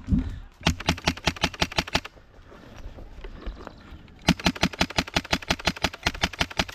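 Airsoft rifle firing full-auto at about eleven shots a second, in two bursts: a short one of about a second and a half, then a longer one starting a little past four seconds in.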